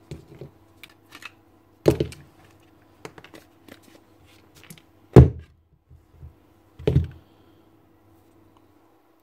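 Knocks and clicks of a power drill's motor housing and field coil being handled and worked apart: three heavy thunks at about 2, 5 and 7 seconds, with lighter clicks between.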